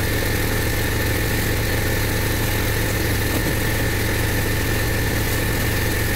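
Pressure washer's engine running steadily, with the hiss of water jets from a rotary surface cleaner being worked over wet block paving.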